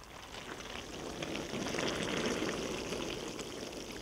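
Fermenting red grape must fizzing and crackling as carbon dioxide bubbles rise and burst at the surface, the sign of active fermentation. It swells to its loudest about halfway through, then eases off.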